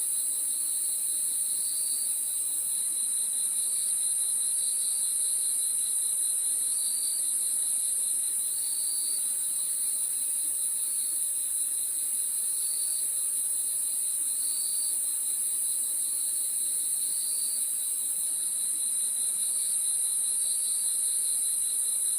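A steady chorus of crickets chirping, with a short, higher chirp repeating about every two seconds.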